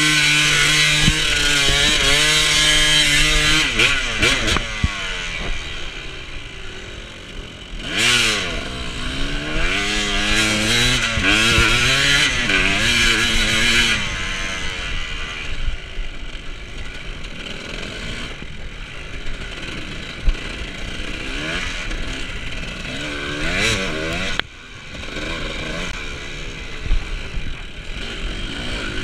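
Off-road dirt bike engine revving up and down as the bike is ridden. The pitch drops and climbs again and again, with the hardest running in the first few seconds and again in the middle. It eases off later, with occasional knocks and clatter.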